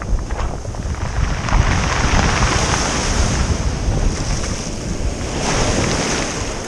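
Surf washing in over a pebble beach, with wind buffeting the microphone. The wash swells about a second and a half in and again near the end.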